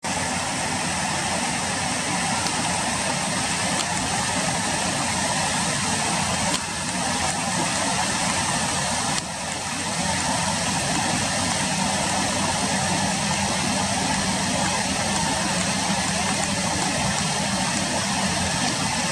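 Steady rushing background noise with a faint low hum. It dips briefly twice, about six and a half and nine seconds in.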